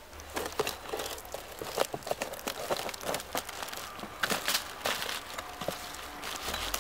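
Pine bark being pried off a dead log with a hatchet blade and pulled away by hand: a run of dry cracks, crackles and tearing.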